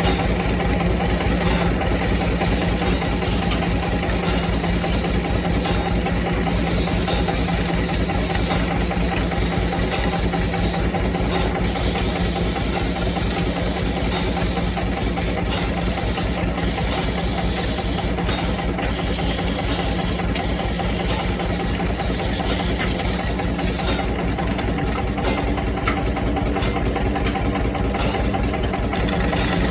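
Wood-turning lathe running with a steady motor hum, and the hiss of a cutting tool scraping the spinning wood that swells and fades in patches, thinning out in the last few seconds.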